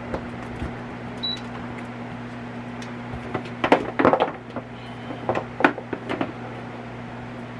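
A short high electronic beep from a digital air fryer about a second in, as its plug goes into the wall outlet. This is followed by several sharp knocks and clatters of handling on the kitchen countertop, the loudest a little past halfway, over a steady low hum.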